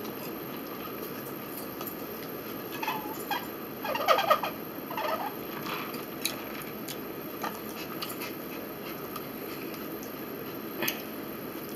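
A person gulping a drink from a plastic bottle: a cluster of throaty swallows about three to five seconds in, then a few faint clicks, over a steady background hum.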